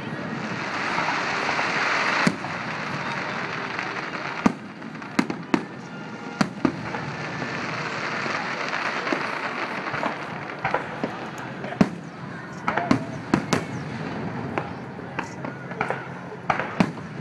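Fireworks display: aerial shells bursting in sharp bangs at irregular intervals. Beneath them runs a steady hiss that swells twice.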